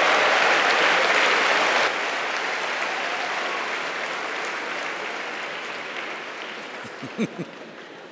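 Large audience applauding and laughing. It is loud at first, drops sharply about two seconds in, then fades away gradually, with a couple of short low sounds near the end.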